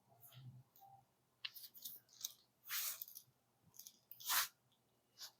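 Faint rustling and shuffling of clothing and body against a chiropractic treatment table as the patient is positioned for a lumbar and hip adjustment, with a few short swishes, the louder ones about three and four and a half seconds in.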